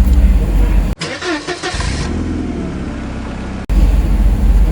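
A motor vehicle engine running with a steady low hum, broken for a few seconds in the middle by an abruptly cut-in stretch of different, thinner sound.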